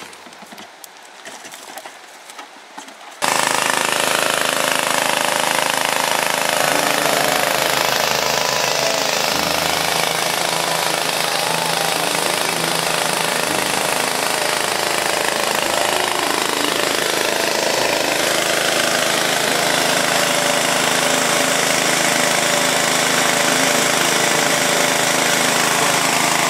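Small petrol-engine water pump running steadily, with water rushing down a sluice box. The loud, even noise comes in suddenly about three seconds in, after a few light clicks.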